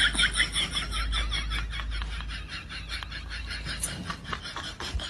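Stifled snickering laughter: a quick run of short breathy pulses, about five a second, that slowly dies down.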